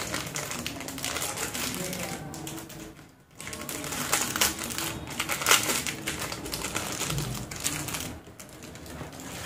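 Clear plastic packet crinkling and clicking as it is worked open by hand, in quick irregular clicks with a short pause about three seconds in.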